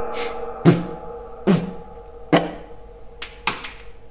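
Three gunshots about a second apart in an indoor range, each with a short echo, followed near the end by two light metallic clinks with a brief high ring.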